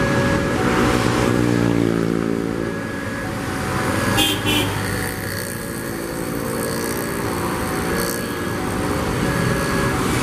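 Level-crossing warning bell sounding in regular on-off pulses while a KRL JR205-series electric train approaches, over engine noise from road traffic. A short horn toot comes about four seconds in.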